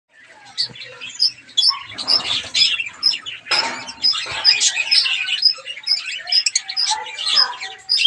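Gouldian finches chirping: a steady run of short, high chirps about two a second over busier twittering, with louder rough noises about two seconds and three and a half seconds in.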